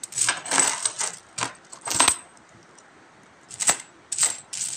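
Metal coins clinking against one another as fingers slide and push them across a pile to count them: irregular short clinks in small clusters, with a pause of a second or so in the middle.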